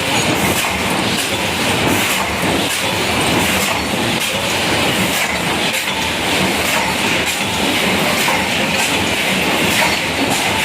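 JBZ-500 paper plate making machine running at production speed: a steady mechanical clatter with regular repeating knocks as it presses out plates.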